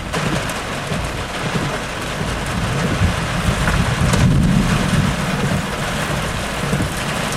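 Rain falling steadily on a parked car during a thunderstorm, with a low rumble of thunder swelling about four seconds in.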